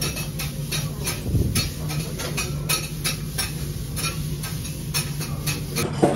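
Kitchen utensil clicking against cookware in an even rhythm, about three clicks a second, over a steady low hum.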